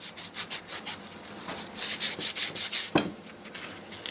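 Emery cloth rubbed back and forth on a Tecumseh lawn mower engine's crankshaft, a run of short scratchy strokes. It is sanding corrosion off the shaft so the sump plate will slide off. A single sharp knock comes about three seconds in.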